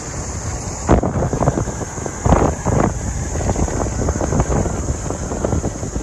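Wind buffeting the microphone of a motorcycle rider's camera while riding, over the bike's running noise, with strong gusts about a second in and again around two and a half seconds in.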